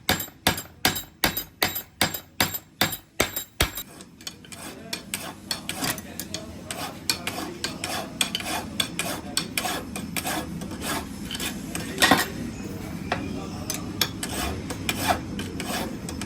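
Metal being struck with a hammer in a steady rhythm, about two blows a second, for about four seconds. Then it gives way to quicker, irregular metal clinking and scraping, like parts being filed and handled, with one louder clank near the middle.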